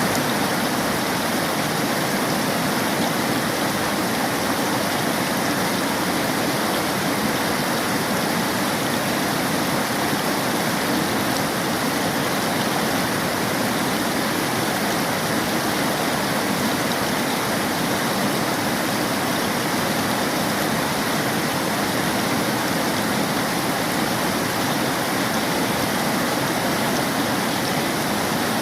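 River water flowing and splashing steadily over rocks, a continuous rushing sound with no change in level.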